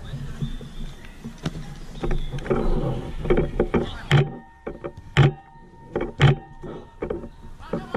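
Live sound of a mini-soccer game: the ball being kicked and thudding, knocks and scuffs of play, and players calling out now and then. From about four seconds in, a few dull thuds come roughly a second apart.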